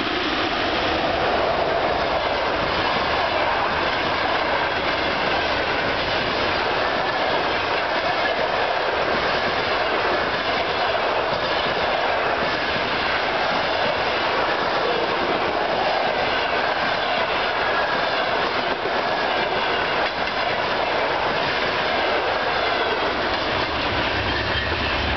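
Two electric-hauled trains passing each other close by on adjacent tracks, a passenger train of coaches behind a ChS4 locomotive and a freight train of hopper and box wagons behind a VL80k locomotive: loud, steady rolling noise of steel wheels on rails.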